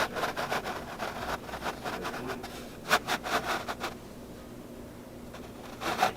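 Irregular scraping, rubbing and knocking of objects being handled, with a sharper knock about three seconds in, over a faint steady hum.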